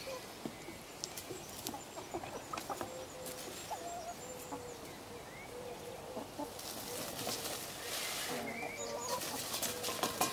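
Domestic hens clucking with short, low calls throughout, while a displaying peacock shakes his fanned train in spells of dry feather rustling, the loudest from about seven to eight and a half seconds in.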